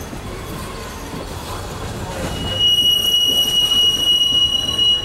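Passenger train coach rolling along the track with a steady rumble; a little over two seconds in, the wheels set up a steady high-pitched squeal against the rails that is the loudest sound.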